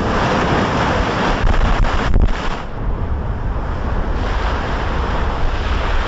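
Strong storm wind buffeting the microphone over heavy, stormy ocean surf, a loud, steady rush with deep rumble that swells briefly about two seconds in.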